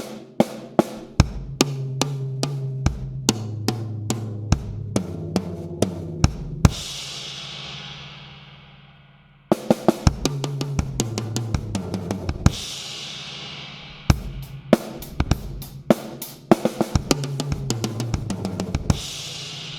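Drum kit played: beats leading into fills that step down around the toms, each landing on a crash cymbal that rings out, three times. The fills are the beginner's tom fill with the last hand stroke swapped for a bass-drum kick.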